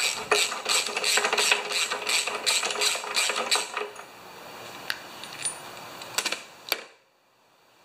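Socket ratchet clicking rapidly as the old original spark plug is unscrewed from a Briggs & Stratton Quantum lawn mower engine, then a few separate clicks and taps as the plug comes free. The sound drops to near silence for the last second.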